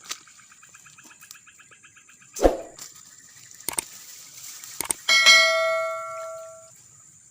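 A few sharp knocks, then about five seconds in a single loud metallic ring with several clear tones that fades out over about a second and a half, over faint chirping insects.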